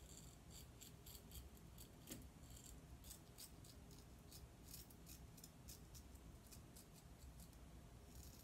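Faint, quick run of short scraping strokes from a Merkur Progress double-edge safety razor with a Gillette 7 o'clock blade cutting lathered stubble on the upper lip.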